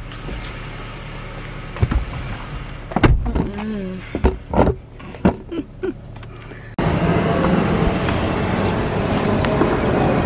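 Inside a car with a steady low engine hum, a car door is handled as a passenger gets in, followed by several sharp knocks and rustles. About seven seconds in, the sound changes abruptly to a louder, steady outdoor noise haze.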